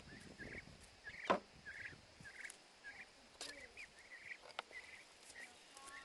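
Backyard turkeys and chickens calling: a steady scatter of short, high calls, several a second, with a few sharp clicks, the loudest about a second in.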